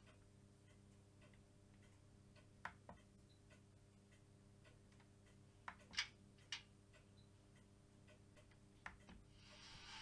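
Near silence: a low steady hum with about half a dozen faint, irregular clicks scattered through it. A hiss fades in near the end.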